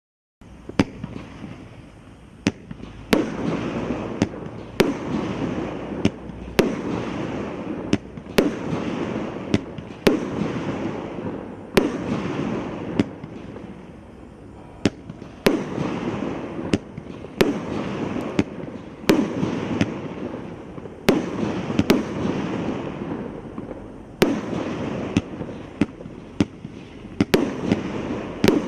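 Willow Wizard 500 gram consumer fireworks cake firing its shots in rapid sequence, about one a second. Each sharp report is followed by a second or so of rustling, crackling noise as the effect breaks. There is a short lull about halfway through.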